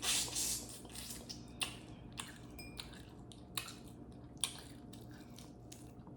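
Close-up eating sounds: chewing and wet mouth noises, with a short noisy burst at the start and then a scatter of small clicks.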